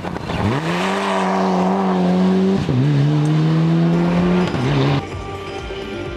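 Mitsubishi Lancer Evolution rally car's turbocharged four-cylinder engine accelerating hard on gravel. The revs rise and hold high, drop briefly at gear changes about two and a half and four and a half seconds in, and the sound cuts off at about five seconds.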